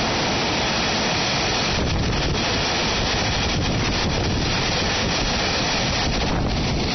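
Freight train of zinc calcine tank wagons rolling past close by at speed: a loud, steady rushing noise of wheels on rail, with a few faint clicks.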